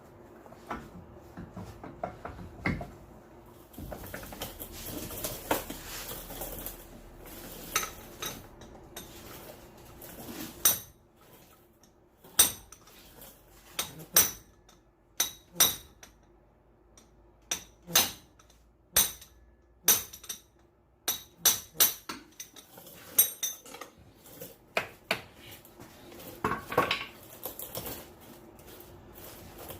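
Hammer striking the steel stub shaft of a Dodge Ram 1500's front CV axle to drive it out of the hub. Quieter tool clatter comes first; then, from about ten seconds in, there are around twenty sharp, ringing metal-on-metal blows at irregular intervals.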